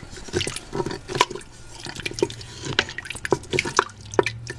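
Beef broth bubbling in a cooking pot, with irregular small pops and drips over a low steady hum.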